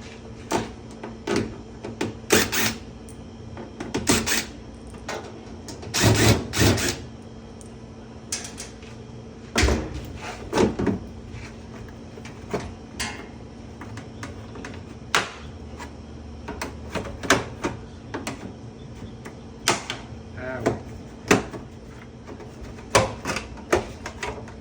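Irregular clicks, clacks and knocks of hand work on a front-load washer's plastic and metal parts, with a few louder clatters, over a faint steady hum.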